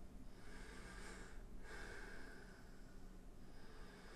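A man breathing faintly but heavily through the nose: three long breaths in a row.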